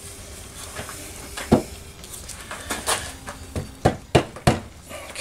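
A series of sharp, irregular knocks as the back of a hammer taps a Kohler KT17 engine cylinder down over its piston and studs; the cylinder is binding because it is going on crooked.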